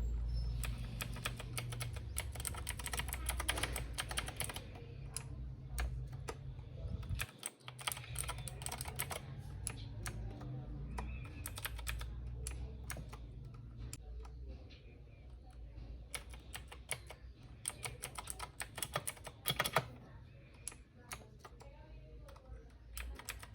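Typing on a Royal Kludge RK61 mechanical keyboard with blue clicky switches: runs of rapid keystrokes with short pauses between them.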